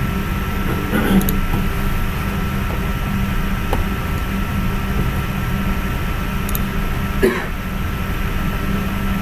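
Steady background hum and hiss with a thin, steady whine running through it, a few faint clicks, and a brief voice-like sound a little after seven seconds in.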